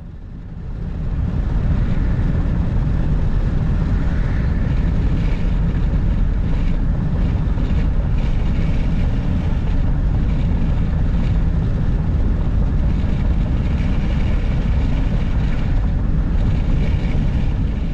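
Steady road and wind noise of a van cruising at highway speed, swelling about a second in and then holding.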